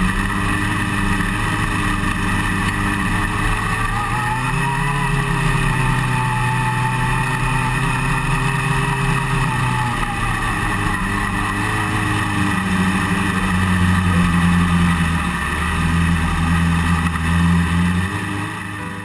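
Open-wheel dirt race car's engine, heard from the car itself, running at low speed as the car rolls slowly. The note rises a little about four seconds in, eases back near the ten-second mark, and picks up again toward the end.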